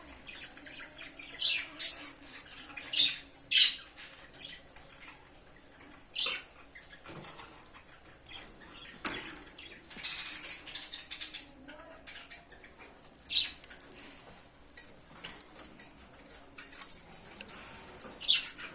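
Lovebirds giving short, sharp, high chirps every few seconds, with rustling and wing movement in between.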